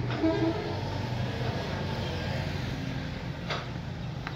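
Steady low machine hum over background noise, with two short sharp clicks near the end.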